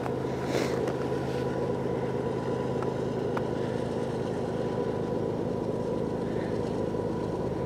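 Diesel freight locomotives, led by a GE ES44AC, running as the train approaches: a steady engine drone with a faint steady whine above it.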